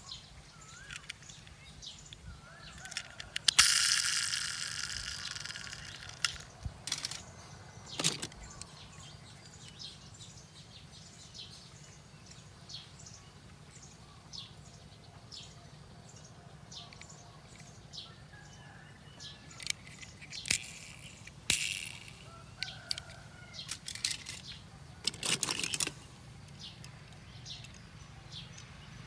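Nature soundscape of birds chirping: many short, high chirps scattered throughout, with a loud rushing burst about three and a half seconds in that fades over a couple of seconds, a few sharp clicks, and another short noisy burst near the end.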